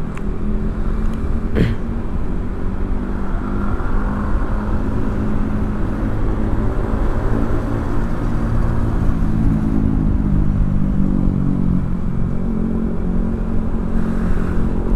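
Single-cylinder engine of a 2013 Honda Vario 125 scooter running steadily at riding speed, its pitch wavering slightly, with wind rumbling on the microphone. A single sharp click about a second and a half in.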